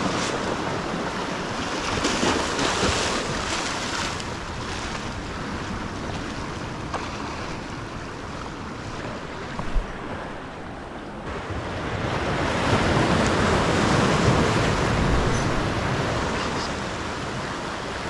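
Pacific surf breaking and washing up the beach, with wind buffeting the microphone; the wash swells louder in the second half. There is a brief low bump about ten seconds in.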